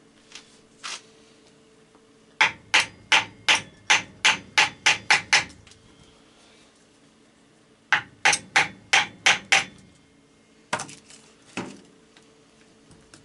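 Hammer tapping the cylinder jug of a seized Honda ATC 200ES engine to work it off a piston whose rings are stuck. There are two light taps, then a quickening run of about ten sharp strikes, a pause, about seven more, and two last knocks near the end.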